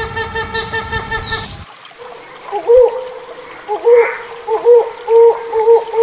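Hornbill calls: short honking notes repeated evenly over a background hiss, then after an abrupt splice about a second and a half in that cuts the hiss, a series of short looping hoots that start sparse and come faster and faster toward the end.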